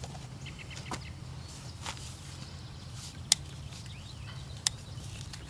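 Farrier's trimming tools working the underside of a Belgian draft horse's hoof: scattered sharp clicks, the loudest about three seconds in and another a second and a half later, over a steady low hum.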